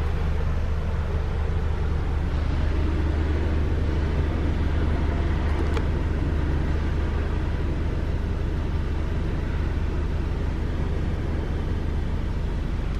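2009 Toyota Vios four-cylinder engine idling steadily, a low even hum heard from inside the stationary car's cabin.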